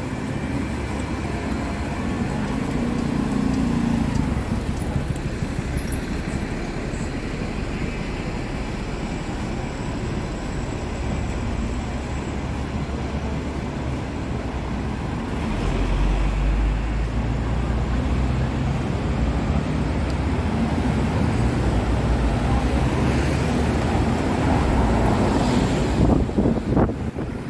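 Steady low rumble of vehicle traffic, with a brief sharp sound near the end.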